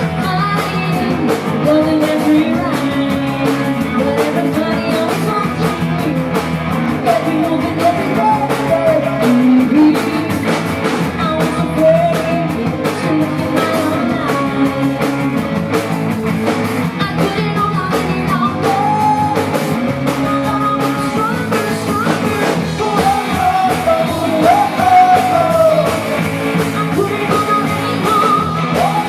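Rock band playing live: a lead singer over electric guitar and a drum kit.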